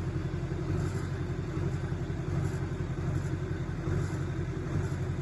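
Mercury 3.3 hp outboard motor running steadily, a constant low engine rumble.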